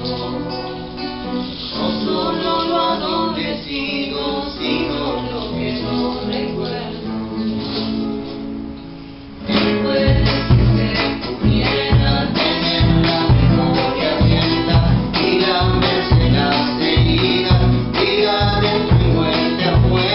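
Song with singing over acoustic guitar; about halfway through, a steady drum beat comes in and the music gets louder.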